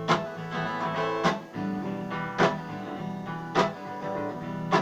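Acoustic guitar strummed in chords, with a strong accented stroke about every second and a bit and the chords ringing between them: an instrumental gap in the song.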